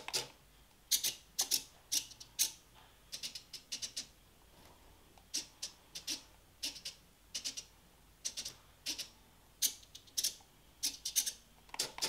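Micro servos driving a 3D-printed animatronic eye, whirring in many short, irregular bursts as the eyeball turns and the eyelids blink on joystick command.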